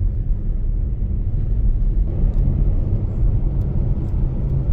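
Car driving on the road: a steady low rumble of engine and road noise, with a few faint ticks.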